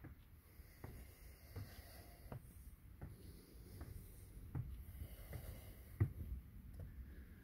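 Footsteps climbing wooden stairs, a dull thud about every three-quarters of a second, one heavier step about six seconds in, with the climber's breathing underneath.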